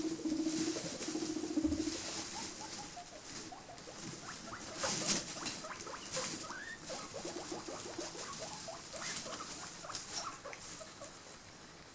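Guinea pigs making many short, soft rising squeaks, with scattered clicks and rustles as they move about. A low steady tone sounds during the first two seconds.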